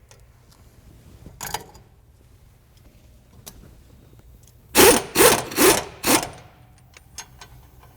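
Power wrench running in short bursts: once briefly, then four quick bursts in a row past the middle. It is spinning off the nuts that hold the Jeep's spindle to the ball joints on the axle housing.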